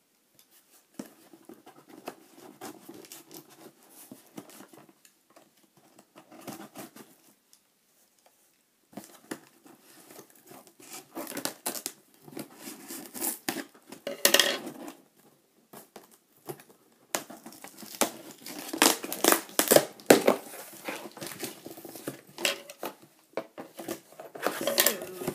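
Cardboard shipping box being opened by hand: packing tape slit and torn, cardboard scraping and rustling, then the flaps pulled open. Sparse scratches and clicks at first, with louder, quicker bursts of tearing and rustling in the second half.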